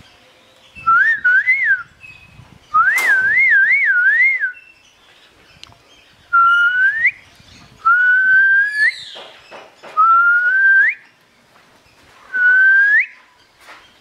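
A person whistling: two warbling whistles that wobble up and down in pitch, then four shorter whistles that each hold a note and slide sharply upward at the end.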